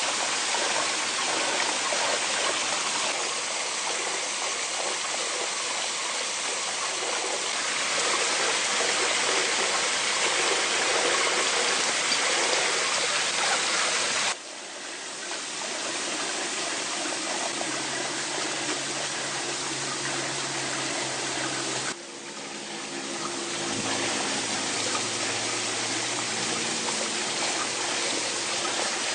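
Steady rushing of a forest stream, a constant hiss of running water. It drops abruptly and changes character twice, about halfway through and again about three quarters of the way through.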